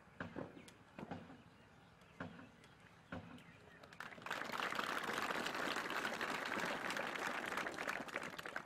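A few separate sharp knocks. Then, about four seconds in, an audience breaks into applause that lasts about four seconds and stops just before the end.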